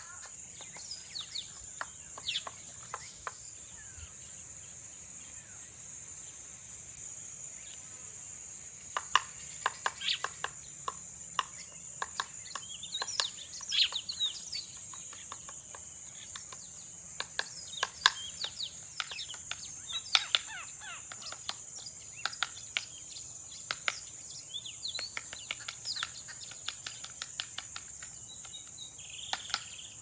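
A steady, high-pitched insect trill, crossed by irregular sharp taps of a bearded woodpecker pecking at tree bark, with a few short bird chirps.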